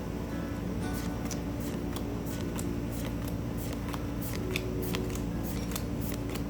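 Pokémon trading cards being slid and flicked through one at a time, a string of crisp, irregular clicks and rustles.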